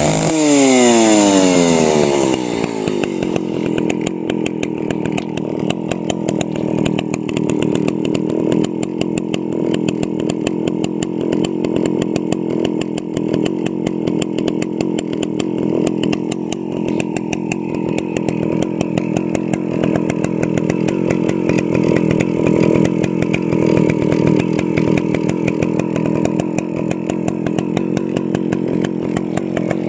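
Stihl 041 AV two-stroke chainsaw engine dropping back from high revs over the first couple of seconds, then idling steadily off the cut.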